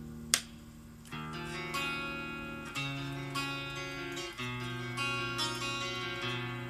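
Greco GP-850 guitar played slowly, single notes or chords ringing out and changing every second or two. A sharp click about a third of a second in is the loudest moment.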